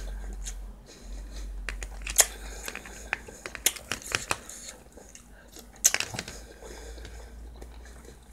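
Close-up eating sounds: chewing and mouth noises, with sharp clicks of a metal spoon against a plastic takeout tray while scooping corn. Near the end, a cooked shrimp being pulled apart by hand.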